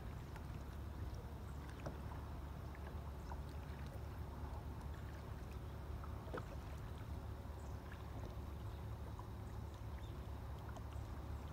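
Steady low rumble of a boat on the water, with water sounds and faint scattered ticks.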